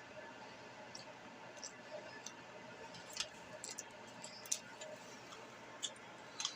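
Scattered light clicks and taps of hands handling crescent-dough rolls and a baking pan, about ten in all and irregular, over a faint steady room hum.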